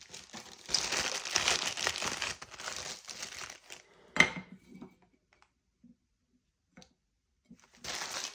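Plastic packaging bags crinkling as bagged door handle components are handled and unwrapped, with one sharp knock about four seconds in. A stretch of near quiet follows, and the crinkling starts again briefly near the end.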